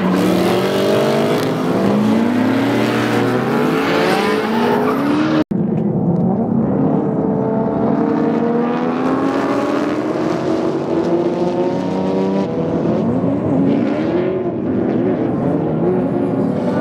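Drift cars' engines revving up and down on the limiter as they slide, with a hiss of tire noise, loudest in the first five seconds. A brief dropout about five and a half seconds in, after which engine revs continue with less tire noise.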